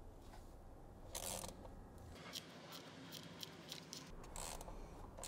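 Faint, scattered clicks and brief scraping as a VANOS camshaft solenoid is handled and fitted into an N62 V8 engine.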